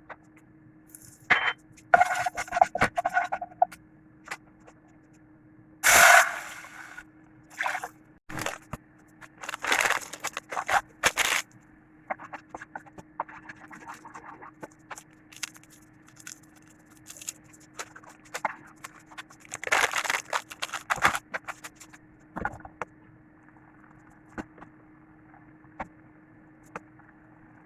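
Food-preparation handling sounds from making instant noodles: scattered clicks, knocks and scrapes, with a few louder noisy bursts lasting about a second, over a steady faint hum.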